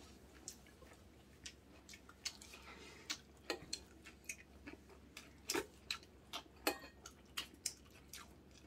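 Faint eating sounds at a table: chewing, with irregular light clicks of chopsticks and spoon against bowls and dishes.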